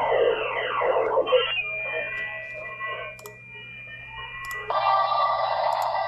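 Shortwave receiver audio from a Xiegu G90 HF transceiver's speaker as it is tuned across the 40-metre band. In LSB a mistuned signal slides down in pitch while the dial turns, then gives way to hiss with a few steady tones and some faint clicks. About three-quarters through, the receiver is switched to AM and a louder, wider signal with hiss comes in.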